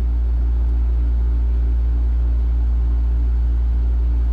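A steady low hum with a ladder of evenly spaced overtones, unchanging throughout.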